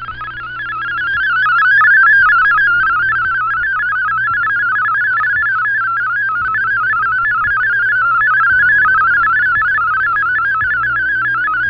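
Shortwave Radiogram's MFSK32 digital text signal on 7780 kHz, played through an Icom IC-R8600 receiver in AM. It is a fast, even warble of tones hopping up and down within a narrow pitch range, and it is being decoded into text as it plays. Lower steady tones run underneath.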